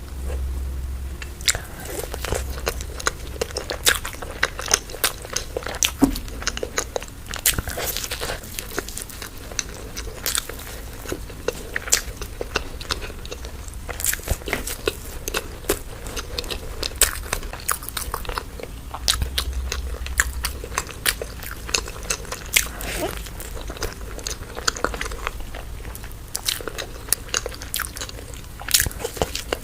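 Close-miked biting and chewing of crunchy food, with irregular sharp crunches several times a second.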